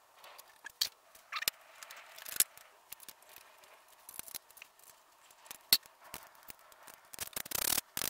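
Scattered clicks, taps and short scrapes of a screwdriver and hands working loose the plastic belly-pan trim of a Suzuki GSR 750, with a longer, louder scraping rustle near the end as the plastic is moved.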